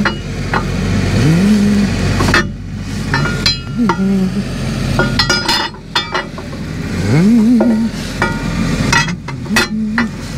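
Metal parts clinking and knocking against each other. Twice, about a second in and again about seven seconds in, a motor's pitch rises and holds for a moment.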